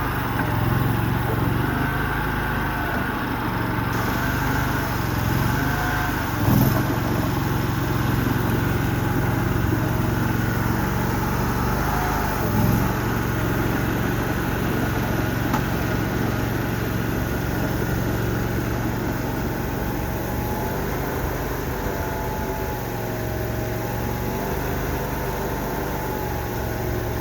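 Mini skid steer's small engine running steadily under a wavering whine, with two clunks, about six and about twelve and a half seconds in.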